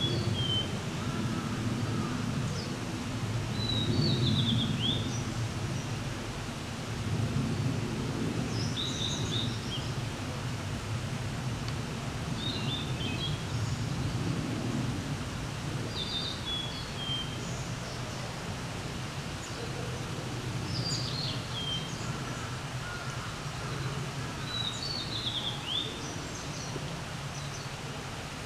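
A songbird singing short, high phrases of a few quick notes, repeated about every four seconds. The recordist takes it for a female blue-and-white flycatcher. Under it runs a steady low rumble.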